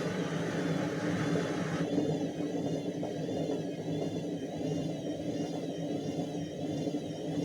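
Indesit washing machine running, a steady motor hum with a faint wavering whine as the drum turns between spin build-ups. A hiss over the hum stops about two seconds in.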